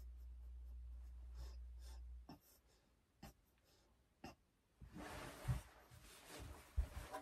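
A low steady hum that cuts off about two seconds in, then a few soft clicks, then clothing rustling and a few dull handling thumps as someone moves right up to the microphone.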